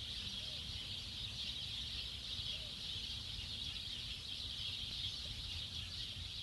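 Steady background ambience: a constant high hiss over a low rumble.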